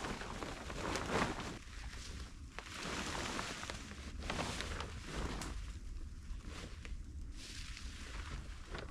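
Irregular rustling and crunching from handling a tarp and moving about in snow while the tarp shelter is being pitched, over a low wind rumble.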